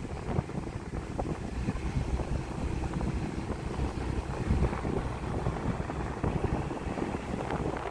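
Wind buffeting the microphone over the low rumble of a moving vehicle, uneven and gusty.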